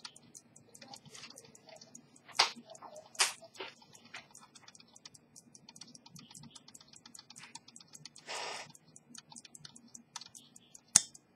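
Antique pocket watch movement ticking, about five small ticks a second. A couple of louder knocks come a few seconds in, a brief rustle later, and one sharp loud click near the end.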